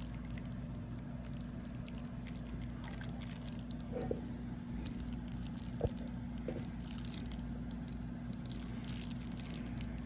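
Faint small ticks and light knocks of playing cards being handled, over a steady low hum.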